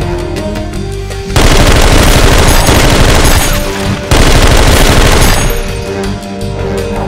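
Background music, then, about a second in, a loud burst of rapid automatic gunfire lasting nearly three seconds. A second short burst follows after a brief break, then the music goes on alone. The gunfire is a sound effect laid over a Nerf blaster being fired.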